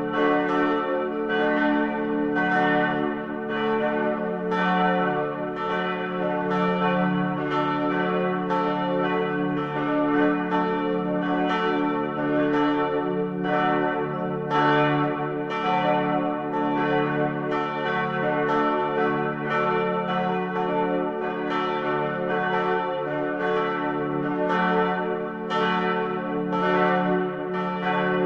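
Church bells ringing in a continuous peal, the strikes following one another quickly and overlapping over a lingering hum of many bell tones.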